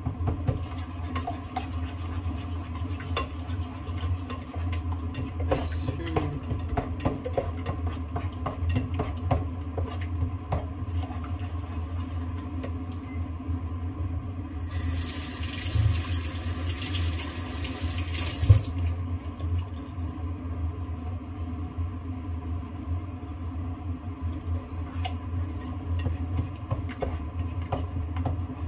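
A spatula scraping and tapping against a small saucepan of eggs cooking on an electric hob, over a steady low hum. About halfway through, a kitchen tap runs into the sink for about four seconds.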